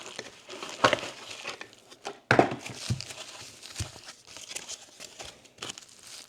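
Plastic packaging crinkling and rustling as it is handled and torn open, with sharper crackles about one second and two and a half seconds in.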